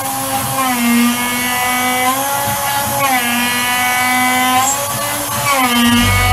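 CNC milling spindle running a 6 mm four-flute end mill through aluminium at 150% feed, a loud steady whine whose pitch dips and recovers several times as the cutter loads and unloads. The operator judges the spindle to be working close to its power limit at this feed.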